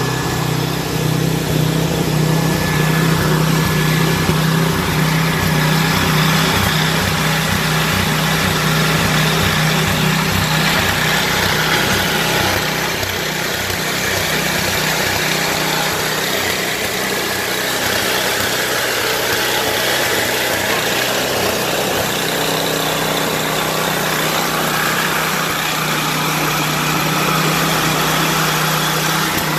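Hand-held Revlon hair dryer running continuously, a steady rush of blown air with a low motor hum, its nozzle held close against an ice-glazed truck door.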